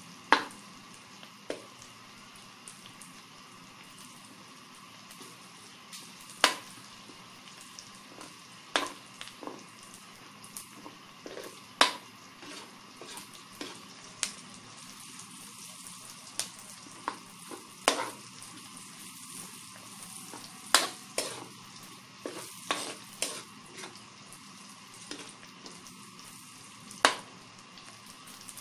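Pork and chopped onion sizzling steadily in a metal wok, with a metal spatula clinking and scraping against the pan at irregular moments as they are stirred.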